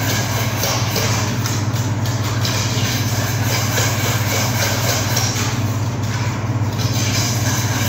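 Steady running machine noise: a constant low hum under an even rushing sound, unbroken throughout.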